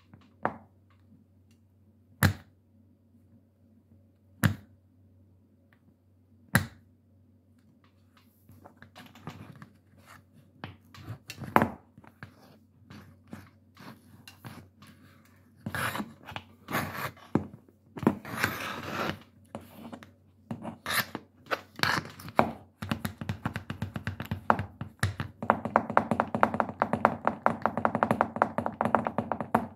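Metal taps on tap shoes striking a hard floor. At first there are single sharp taps about two seconds apart, then irregular taps and scuffs, and in the last several seconds a fast, even run of many taps a second.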